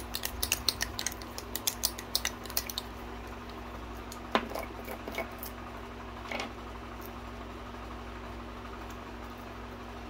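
Small plastic jar of acrylic nail powder being handled and opened, with long acrylic nails and metal rings clicking and tapping rapidly against it for the first three seconds. Then come a couple of single knocks as the jar and lid are handled, over a steady faint hum.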